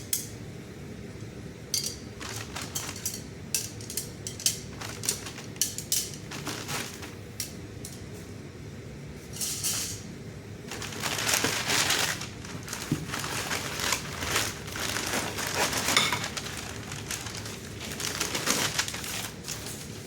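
Steel blacksmith fire tongs and tools clinking and clanking as they are handled and unpacked, in scattered sharp knocks, then several seconds of denser rustling handling noise in the second half.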